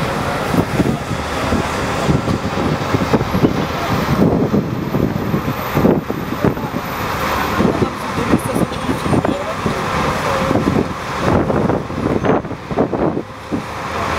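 Dense road traffic: cars, taxis and buses moving along a busy multi-lane city road, a steady mix of engines and tyres.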